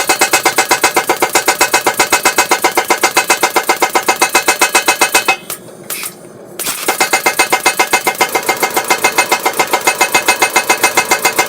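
Power hammer pounding hot steel in a fast, steady rhythm of about seven blows a second, each blow ringing, drawing out and thinning a forged chef's knife blade. The hammering stops for about a second just past the middle, then starts again.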